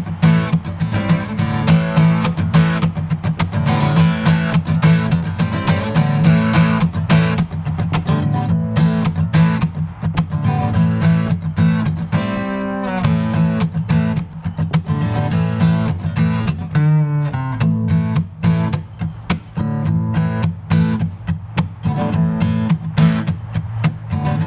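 Acoustic guitar strummed in a steady, upbeat rhythm as the instrumental intro to a song, with two short breaks in the strumming past the middle.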